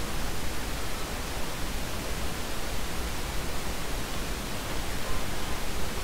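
Steady hiss of background noise with a low rumble underneath, with no distinct events.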